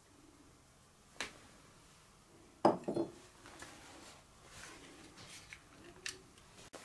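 A few short knocks and clinks of kitchenware being handled, the loudest a brief clatter about three seconds in.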